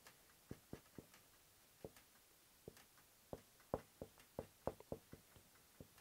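Marker pen tapping and clicking against a whiteboard while writing: a scatter of short, irregular taps, busiest in the second half.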